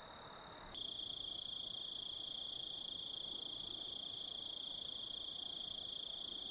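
Crickets chirping in a steady, high-pitched, unbroken chorus, becoming louder about a second in.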